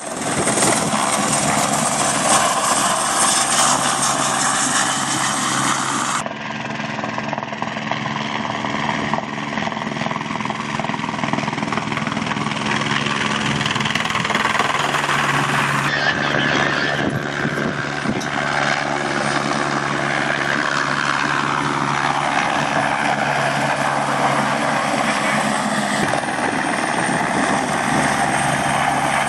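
Helicopter flying low past, its rotor and turbine running loudly and steadily, with the pitch sliding down and back up as it passes. The sound changes suddenly three times.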